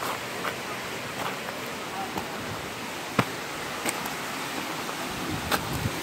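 Steady rush of a waterfall, with a few sharp crunches and clicks of footsteps on rock and gravel on a steep trail.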